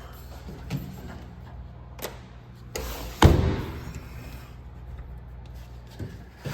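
Sliding glass door being handled and opened: a few clicks, then one loud thud about three seconds in as the door moves on its track.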